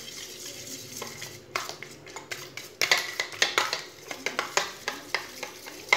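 A metal spoon beats raw eggs in a stainless steel bowl, clinking and scraping against the metal. It starts soft, then about one and a half seconds in it turns into quick, even clinks at roughly four strokes a second.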